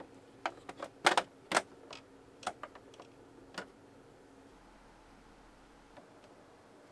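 Clicks and knocks from hands handling a large plastic toy figure during an unboxing. The loudest is a quick cluster about a second in, followed by a few scattered clicks, then it goes quiet for the rest of the time.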